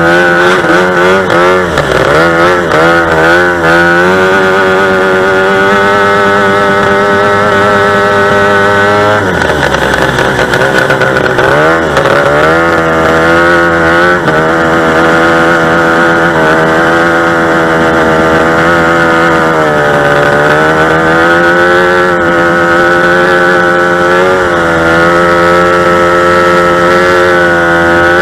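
Two-stroke racing engine revving hard. It is blipped several times at first, then held at high revs, and it eases off and climbs back briefly about nine to twelve seconds in and again about twenty seconds in.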